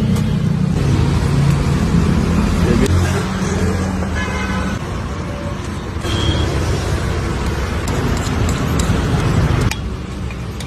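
Steady road traffic rumble, with a brief horn toot about four seconds in.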